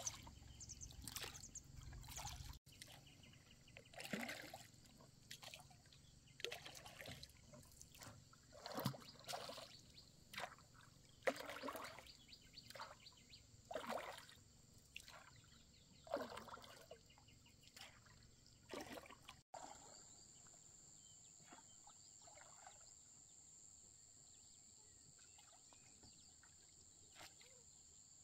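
Water splashing and trickling in separate splashes about once a second. The splashes stop about two-thirds of the way in, and a steady high-pitched whine remains.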